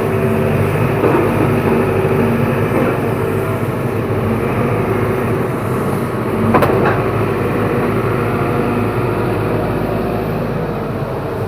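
Excavator's diesel engine running steadily, with one sharp knock a little past halfway.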